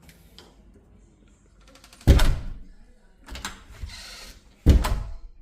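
A door with a newly fitted handle and latch being shut twice to test it, each time closing with a loud thud, about two seconds in and again near the end, with softer clatter between the two closings.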